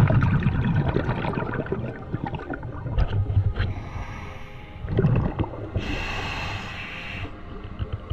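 A scuba diver breathing through a regulator underwater. Exhaled bubbles rumble out at the start and again about five seconds in, with a hissing inhale through the regulator just after the second exhale.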